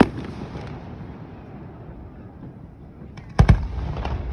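Fireworks going off: a sharp bang right at the start, then two loud bangs in quick succession about three and a half seconds in.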